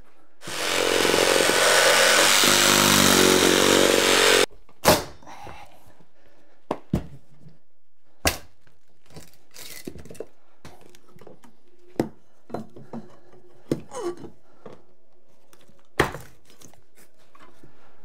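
A reciprocating saw runs loudly for about four seconds and cuts off abruptly, followed by a string of single knocks and thunks from the old wall's bottom plate being broken out and pried up.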